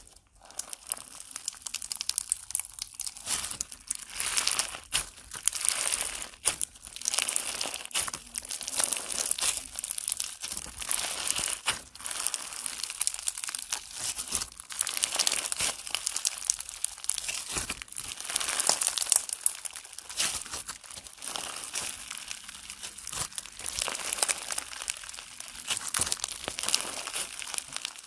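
Crunchy slime packed with small beads being squeezed, poked and stretched by hand: a dense run of crackles and pops.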